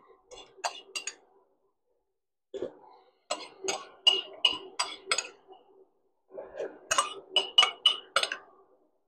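A metal spoon or ladle clinking and scraping against an enamel soup pot in two runs of quick, ringing clicks, over a faint steady hum.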